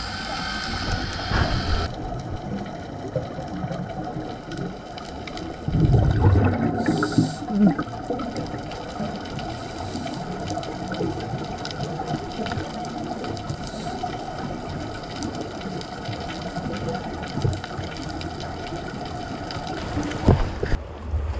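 Underwater sound of a scuba dive: a steady rush of water with the bubbling gurgle of divers' exhaled regulator bubbles, loudest about six seconds in and briefly again near the end.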